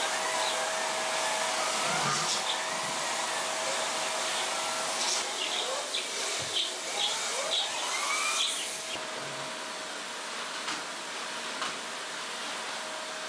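Steady rushing, blowing noise with a faint steady hum, and a few bird chirps and small clicks around the middle. The rushing eases somewhat about nine seconds in.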